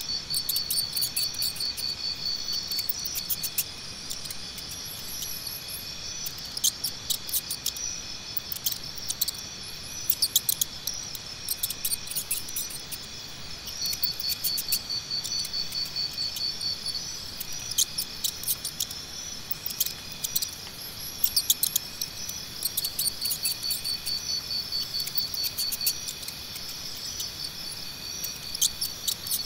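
Insects chirping steadily in a chorus, with a high, fast-pulsed trill that comes and goes in stretches of a few seconds. Scattered sharp clicks come through over it.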